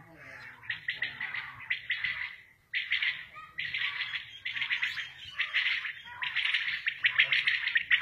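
Common quails calling: short chirping phrases that repeat and overlap almost without pause, with a brief lull about two and a half seconds in.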